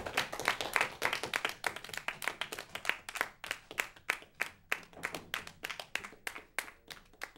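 Studio audience clapping at the end of the show. The claps grow sparser and quieter and die away near the end.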